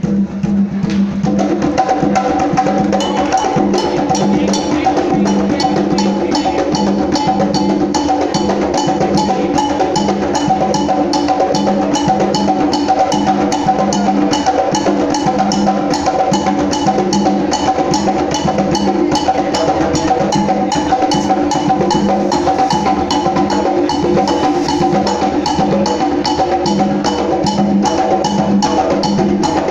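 Hand-drum percussion music: drums playing a steady, fast, driving rhythm for the orisha Xangó, with a sharp click repeating evenly on top and a pulsing low drum.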